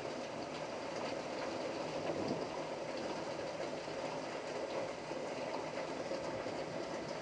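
Steady rush of thunderstorm rain and wind, with faint scattered ticks.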